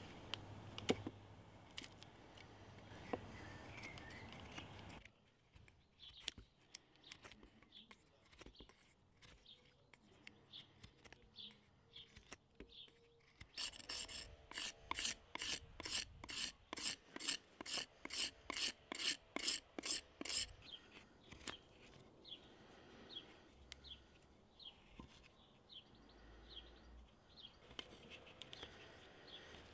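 Hand tools scraping and shaving a pre-dried ash axe handle. There are scattered single knife strokes at first, then a run of regular scraping strokes, about two or three a second, for several seconds past the middle.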